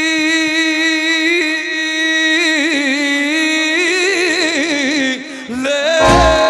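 Male singer holding a long, steady note into a microphone, then breaking into a wavering, ornamented run in Balkan folk style. Near the end the band comes back in with a heavy bass beat.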